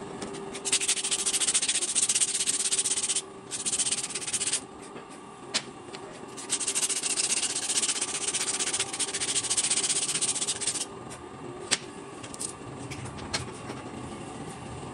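Sandpaper rubbed rapidly back and forth over the friction lining of a motorcycle drum brake shoe, scratchy and loud, in three spells of strokes with short pauses between. A few sharp clicks sound in the pauses and near the end.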